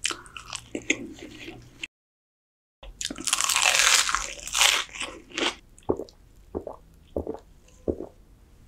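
Close-miked eating of chicken and rice: biting and chewing with wet mouth smacks, a loud stretch of crunchy chewing about three seconds in, then single sharp smacks. The sound cuts out completely for about a second just before the crunchy stretch.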